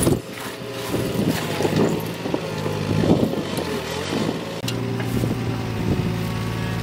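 Gloved hands raking and scraping through ash and broken glass on the floor of a burnt car shell, with irregular crunching and a few sharp clicks, over a steady low mechanical hum that grows plain again in the last couple of seconds.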